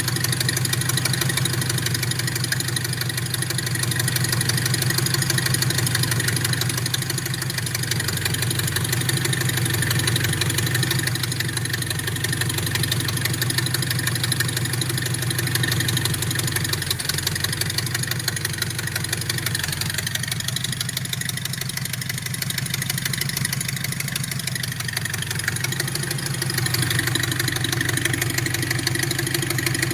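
Nissan 720 pickup's four-cylinder engine idling steadily while warming up from a cold start, its note wavering slightly a few times.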